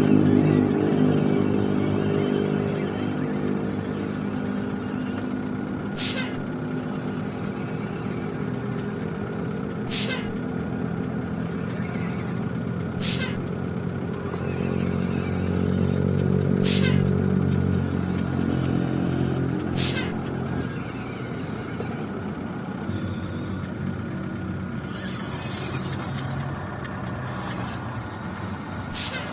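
Radio-controlled model construction machinery running. A steady, deep, engine-like drone swells partway through and eases off after about 20 s, over a thin steady high whine. Six brief sharp hisses cut in at irregular intervals.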